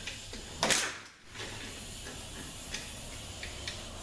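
Tool work on the bolts inside an opened Mercedes 722.6 automatic transmission case: a short loud rasping burst about three-quarters of a second in, then a few light metal clicks.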